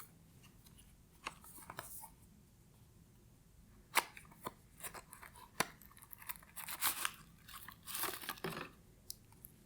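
Cardboard packaging being handled: a small inner box lifted out of the phone box and opened, with scattered light taps and short rustles of card and paper, busiest near the end.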